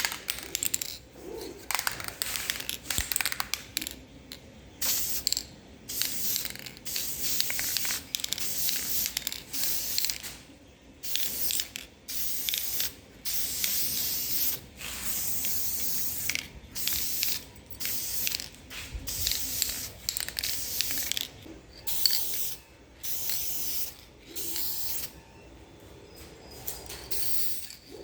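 Aerosol spray paint can hissing in many short bursts, about half a second to two seconds each, with brief pauses between.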